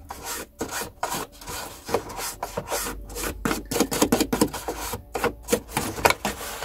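A toothbrush scrubbing the hard plastic base of a vintage Palitoy Cantina playset in quick, scratchy back-and-forth strokes, about two a second, brushing dust out of its moulded crevices.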